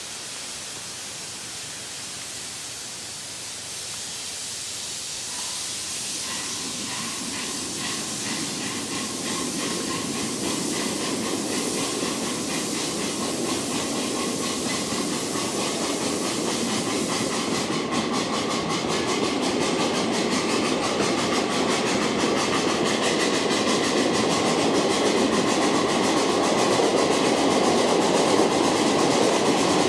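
Ride-on scale live steam locomotive under way, its steam hiss and exhaust growing steadily louder. About two-thirds of the way through, a fast, even exhaust beat comes in.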